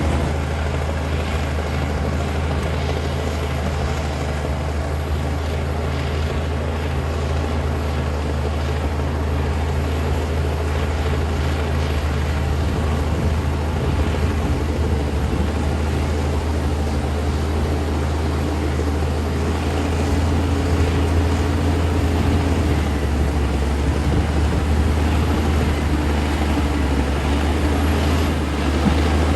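Komatsu D60P bulldozer's diesel engine running steadily with a deep, even hum as the dozer works, growing louder about two-thirds of the way through.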